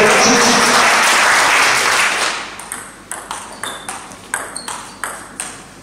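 Loud crowd applause and cheering for a won point, fading after about two seconds. Then a table tennis rally starts: the plastic ball clicks off the bats and the table, about four sharp clicks a second.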